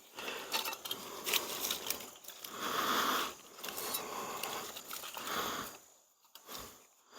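A man breathing heavily, close to the microphone, after the exertion of climbing and strapping a tree stand. Several slow breaths come in swells, the loudest about three seconds in, with a few light clicks between them.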